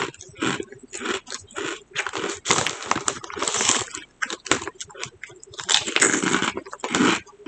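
Crunching and chewing of potato chips close to the microphone, in a run of short crackly bursts, with the crinkle of the plastic chip bag as a hand reaches in for another chip near the middle.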